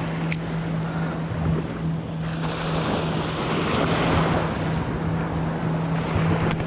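Small surf waves washing around a wader, with wind buffeting the microphone; the water noise swells about two seconds in and holds for a couple of seconds. A steady low hum runs underneath.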